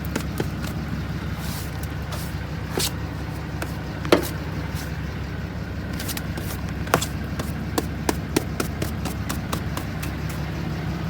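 A vehicle engine idling steadily under scattered clicks and knocks of objects being handled, with one louder knock about four seconds in.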